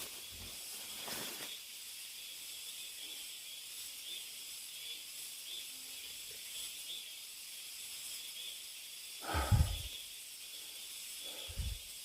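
Steady high-pitched hiss of cicadas singing. Two footsteps come near the end, about two seconds apart, the first one louder.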